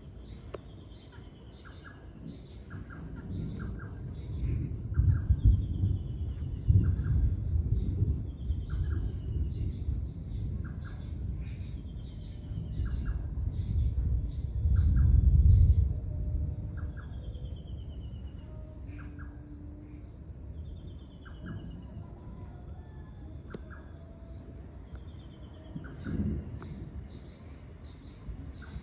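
Rolling thunder from a nearby storm: the rumble swells twice in the first half and comes again briefly near the end. Beneath it run a steady high chorus of night insects and a repeating call of short chirps about once a second and falling whistles every few seconds.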